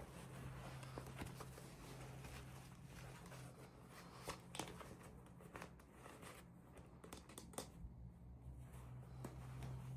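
Faint scattered clicks and light rubbing of small packaging and miniature toy pieces being handled, over a low steady hum.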